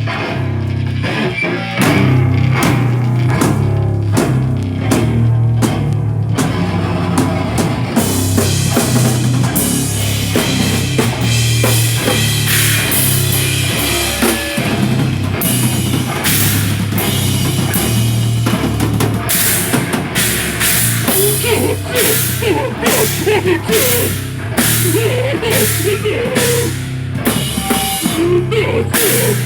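Live heavy rock band playing loud: drum kit hits and cymbals over a heavy, low bass-and-guitar riff.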